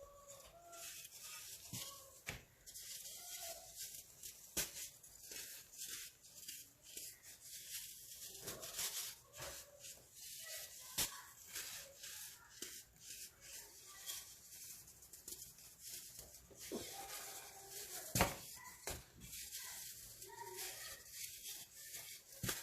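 Crunchy baking soda being crushed: a continuous run of small irregular crackles and crunches, with one sharper, louder crunch about three-quarters of the way through.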